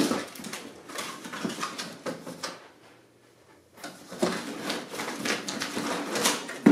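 Rustling, scraping and knocking of a cardboard box and its packing as a monitor is worked out of the tight box, in irregular handling noises with a pause of about a second in the middle and a sharp knock near the end.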